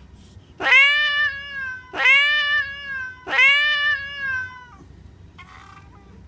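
Domestic cat meowing three times in quick succession, each meow loud and drawn out for about a second.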